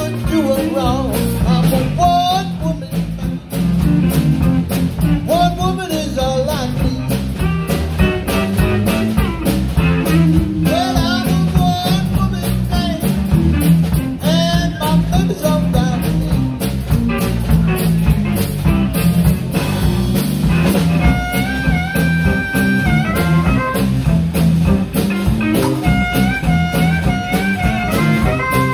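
Live electric blues band playing: electric guitar, bass and drum kit, with a man singing in the first part. Near the end a harmonica takes the lead with held notes that step from pitch to pitch.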